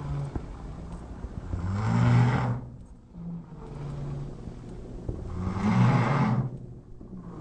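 A person snoring: two loud snores about four seconds apart, with a quieter low drone between them.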